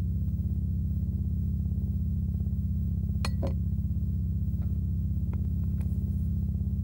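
A low, steady droning music score, with a stainless steel pot clinking twice on a gas stove's metal grate about three seconds in, followed by a few lighter taps.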